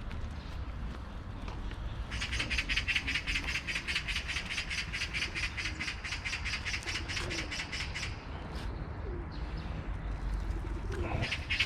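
Magpie giving its harsh rapid rattling chatter, about seven notes a second, for several seconds, then a short burst again near the end.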